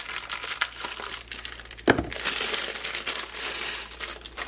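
Clear plastic bag crinkling and rustling as it is handled and pulled off a knife, with a sharp knock about two seconds in.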